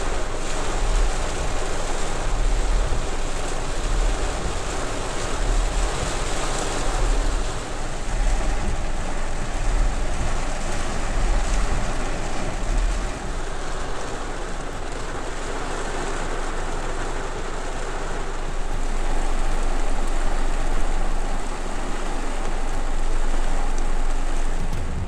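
Heavy rain pouring down steadily, with wind gusts buffeting the microphone as irregular low rumbles.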